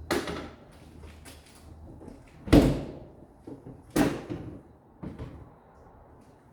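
A series of sharp metal knocks and clunks while the Jeep's hood is unbolted and taken off. The loudest comes about two and a half seconds in, with strong ones at the start and at about four seconds, and lighter taps in between.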